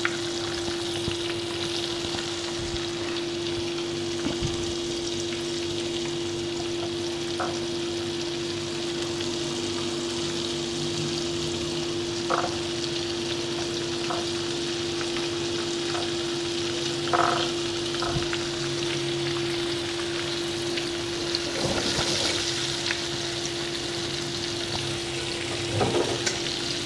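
Flour-coated chicken leg pieces deep-frying in hot oil in a pan, a steady sizzling and bubbling over a steady hum, with a few brief knocks.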